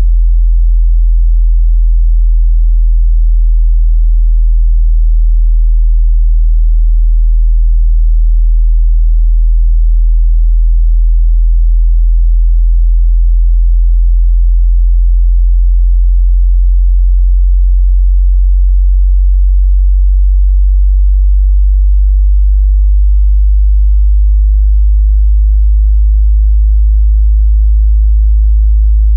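Synthesized sub-bass sine tone, very low and loud, held continuously, with its pitch slowly shifting and a brief change about two-thirds of the way through.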